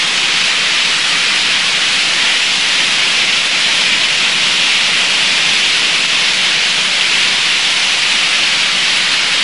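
Loud, steady hiss of an old audio recording: an even noise with no voice or other sound in it.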